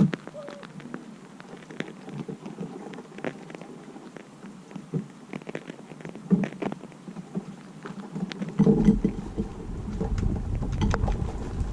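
Rain pattering, with irregular drips and ticks. About two-thirds of the way through, a low wind rumble on the microphone sets in and stays.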